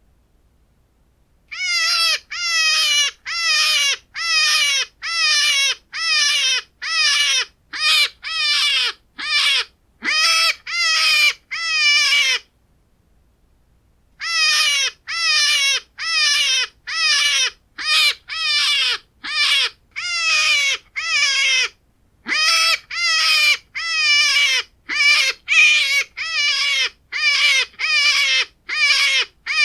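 Hare squealing in a long series of short, pitched calls, about two a second, each dropping in pitch at the end. It is the squeal a hare gives when threatened. The calls begin about a second and a half in, break off for about a second and a half near the middle, pause again briefly, and then run on.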